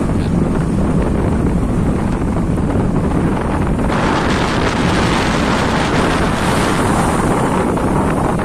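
Strong wind buffeting the microphone over a rough sea, a steady low rumble. About four seconds in, a louder rush of hissing wind and sea comes in and stays.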